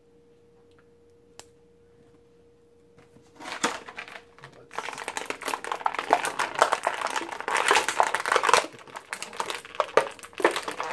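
Clear plastic bag crinkling and crackling as it is handled and opened, starting about three and a half seconds in after a quiet stretch with a faint steady hum.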